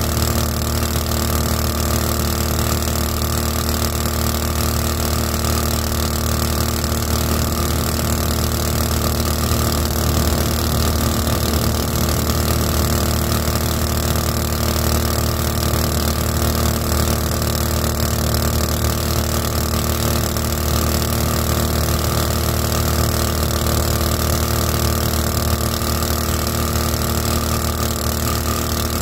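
Small 224cc single-cylinder gas engine driving a 7-inch two-blade prop on a flat-bottom jon boat, running at a steady throttle with no change in speed.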